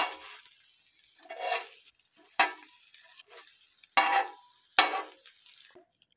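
Sandwich bread slices frying in oil in a pan, sizzling. There are five sharp bursts of sizzling and scraping as a metal utensil turns the slices in the pan.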